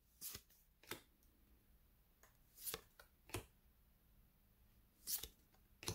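Faint swishes and flicks of cardboard trading cards being slid one by one off a stack in the hand, about six short strokes spread over a few seconds.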